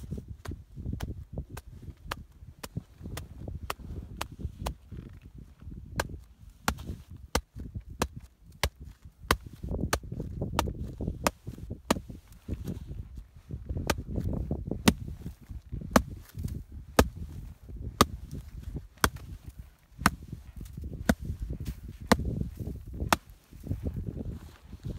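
Shovel blade laid on top of an isolated snow column, struck again and again by hand in an extended column test, about one sharp tap a second: the loading steps of a snowpack stability test.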